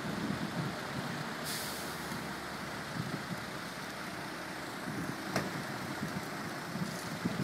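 Road traffic in a stationary queue: steady engine idling and street noise, with a short hiss about a second and a half in and a single sharp click about five seconds in.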